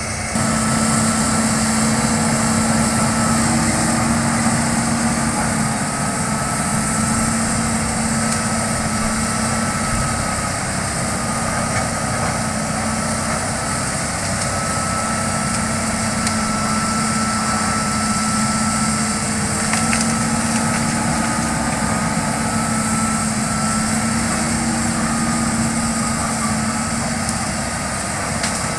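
Hitachi hydraulic excavator's diesel engine running as it works, a steady drone with a higher whine that wavers slightly in pitch.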